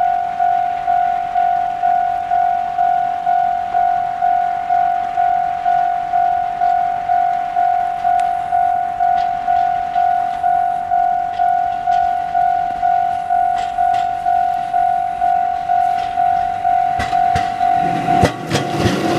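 A level-crossing warning bell rings steadily, about two and a half strikes a second. Near the end, a diesel railcar train reaches the crossing and its wheels clatter over the rail joints.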